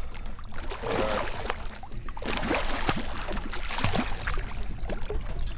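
Water splashing irregularly as a hooked lake trout thrashes at the surface beside the boat and is grabbed by hand.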